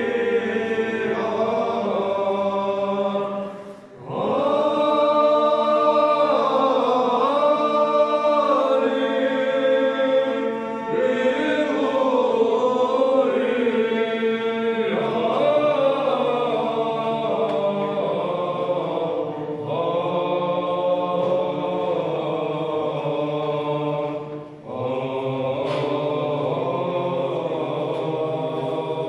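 Men's Byzantine chant choir singing a cappella: the melody moves over a steady held low drone (the ison). The singing breaks off briefly twice, about four seconds in and near the end, between phrases.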